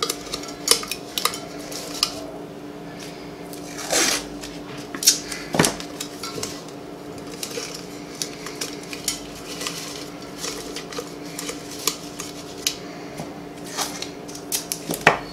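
Scattered light taps, clicks and clinks of a stainless steel tumbler being handled as painter's tape is pressed around its rim, with a few louder knocks, over a steady low hum.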